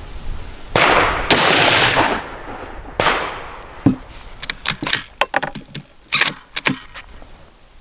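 Loud .308 bolt-action rifle shots, each followed by a long rolling echo. They come as two blasts close together near the start and another about two seconds later. A run of short, sharp metallic clicks and clacks follows.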